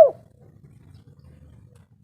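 Spotted dove (tekukur) cooing: the last short coo of a phrase, a note falling in pitch, right at the start.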